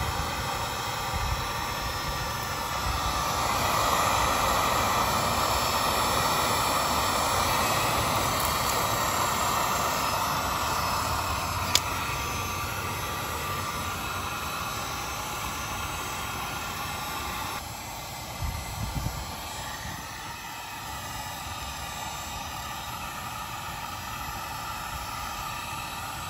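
Electric heat gun running, its fan blowing hot air with a steady whirr, used to soften the adhesive on a motorcycle fork reflector. It grows louder a few seconds in and eases off again past the middle, with one sharp click near the middle.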